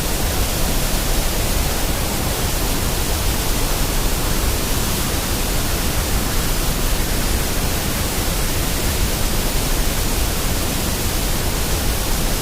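A steady, unchanging hiss of white noise, spread evenly from deep rumble to high hiss, with no rhythm or events: a generated noise track of the kind played for sleep or focus.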